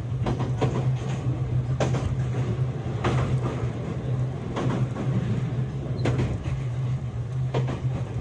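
Running sound heard inside a JR West 227 series electric train's motor car, which has a Toshiba IGBT inverter drive: a steady low hum with clacks from the wheels passing over rail joints, roughly every one to one and a half seconds.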